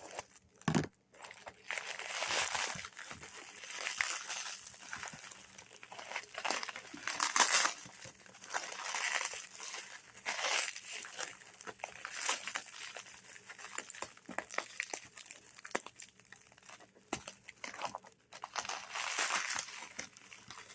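Packaging being unwrapped by hand: irregular crinkling and rustling of plastic wrap, with some tearing.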